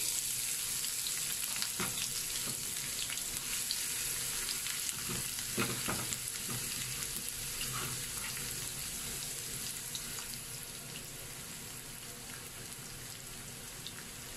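Chopped onions sizzling and crackling in hot oil in a non-stick frying pan, just after being tipped in; the sizzle gradually dies down as they settle.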